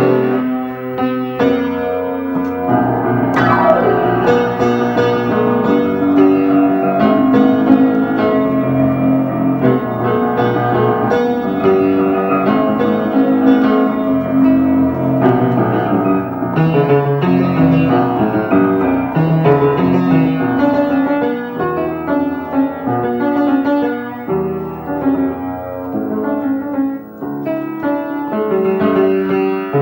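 Instrumental piano music: a keyboard playing a melody over chords, with a falling glide in pitch about three seconds in.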